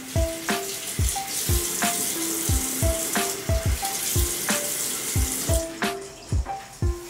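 Water running steadily, which stops a little over five seconds in, over background music of short notes and a steady beat.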